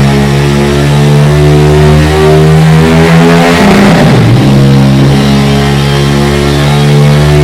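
KTM 1290 Super Duke R's V-twin engine running at high, steady revs through an aftermarket exhaust. About four seconds in, the revs dip briefly and climb back.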